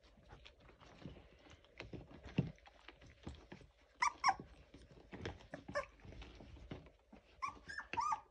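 Young Labrador puppies, about eighteen days old, giving short high-pitched whimpers: a couple about four seconds in, another shortly after, and a run of several near the end, over light knocks and scuffles.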